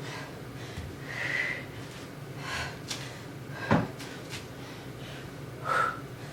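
Heavy breathing of a person doing slow, weighted step-ups and reverse lunges: a few forceful exhales. A single sharp thud a little under four seconds in is the loudest sound.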